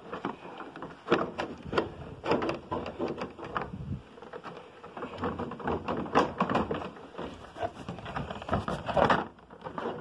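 Hands working plastic cowl trim loose under a van's hood: a run of irregular clicks, knocks and scraping rustles.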